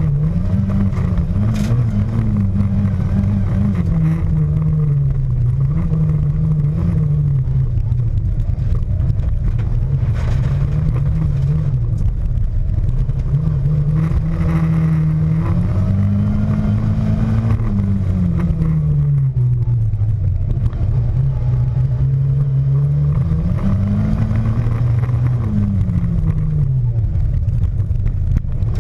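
Skoda Felicia rally car's engine heard from inside the car under hard driving, its note repeatedly rising and falling with the throttle and gear changes.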